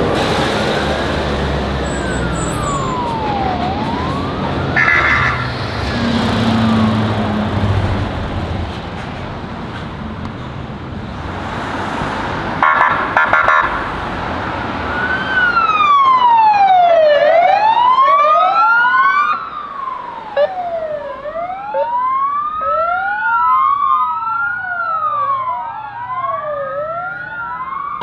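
A heavy Tatra fire-brigade truck passing with its diesel engine rumbling under a faint wailing siren. About halfway through, a louder siren on a fire-brigade van takes over, two wailing tones sweeping up and down out of step, and the engine rumble falls away.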